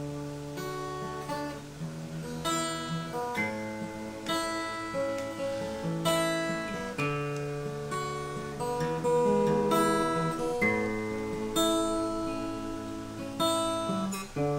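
Acoustic guitar playing a song intro, with chords struck about once a second and left to ring.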